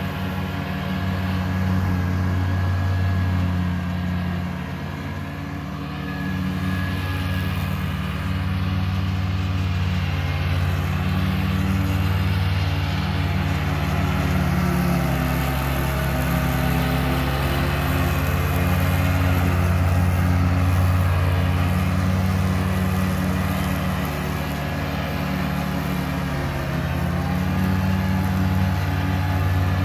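John Deere 2320 compact tractor's three-cylinder diesel engine running steadily under load while its mid-mount mower deck cuts high grass. It grows louder and softer as the tractor moves nearer and farther away.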